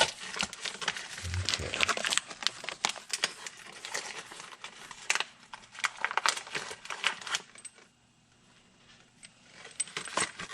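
Packaging of a new valve keeper installer tool being opened by hand: plastic crinkling and tearing with clicks and light clinks of small parts, pausing for about two seconds near the end.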